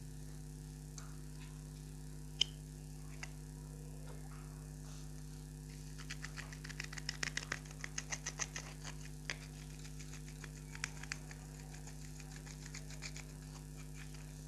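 Clear slime being pressed and worked by hand, giving a single sharp click a couple of seconds in, then a fast run of crisp clicky pops from trapped air bubbles that thins out over a few seconds. A steady low hum sits underneath.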